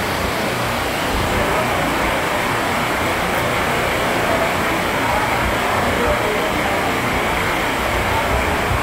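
Floodwater rushing down a paved street in heavy rain: a steady rushing of water.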